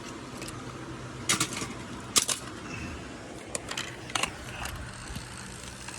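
Steady low road and engine noise inside a moving car's cabin, with a few sharp clicks and rattles; the loudest comes about two seconds in.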